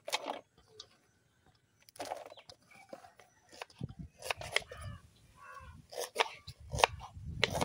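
Sliced onions tumbling onto a steel plate, then a knife slicing tomatoes on a wooden cutting board: a series of sharp knocks, coming thickest near the end.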